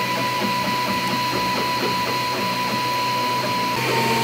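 Anet A8 Prusa i3-style 3D printer printing: its stepper motors whir in shifting, gliding pitches as the print head and bed move, over a steady hum. The pattern of motor pitches changes shortly before the end.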